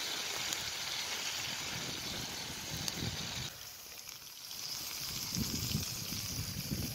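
Bacon and eggs sizzling in a small frying pan over a wood campfire, a steady hiss. The sizzle changes abruptly about halfway through, and low rumbles come in near the end.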